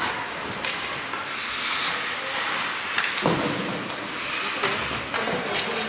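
Ice rink noise during a youth ice hockey game: a steady hiss of skates on the ice and a hum of spectators, broken by a few sharp clacks about three seconds in.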